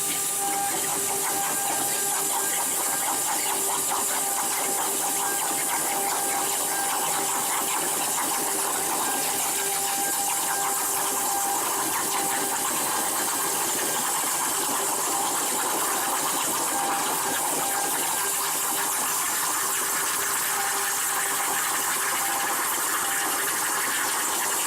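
CNC plasma cutter's torch cutting metal plate: a steady hiss with a faint tone underneath that fades in and out.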